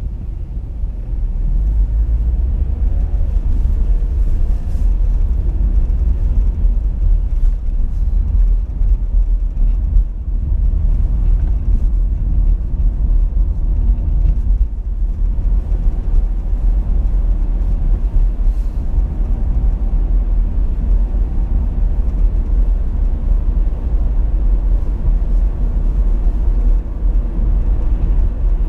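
Car driving, heard from inside the cabin: a steady deep rumble of engine and tyre noise, swelling in the first couple of seconds as the car picks up speed.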